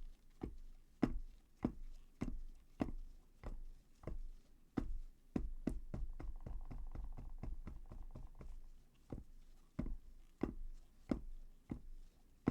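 A mold filled with wet plaster being tapped over and over, steady knocks about one and a half a second, to settle the plaster into the mold and bring out air bubbles.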